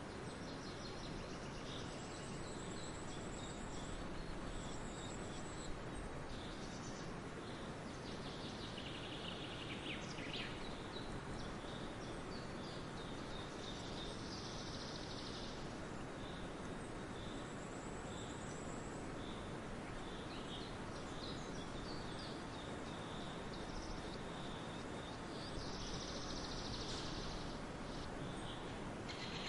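Several wild birds singing and chirping, with short calls and a few brief high trills scattered throughout, over a steady background hiss of outdoor ambience.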